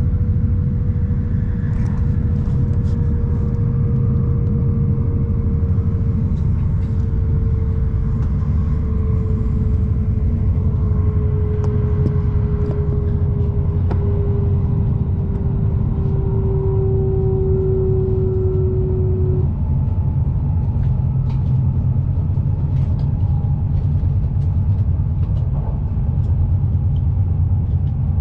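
Shinkansen bullet train running at speed, a steady low rumble with a tone that slowly falls in pitch and stops about two-thirds of the way through, and scattered light clicks.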